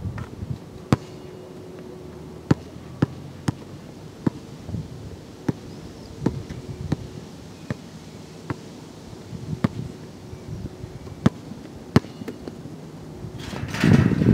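A basketball bouncing on the court, single sharp thuds at uneven intervals, then a rush of wind on the microphone near the end.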